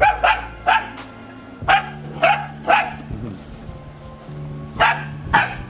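Yellow Labrador retriever puppy barking in short, high-pitched yips: eight barks in three quick bursts of three, three and two.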